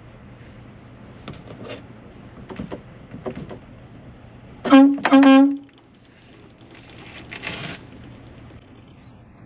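Truck horn sounding two short blasts in quick succession about halfway through, one steady low tone, over the steady hum of an idling truck engine. A short burst of hiss follows a couple of seconds later.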